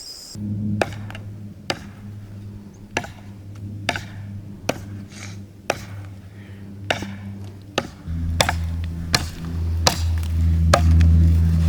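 Blade chopping, sharp separate strokes about once a second that come quicker near the end, over a steady low hum that grows louder about eight seconds in.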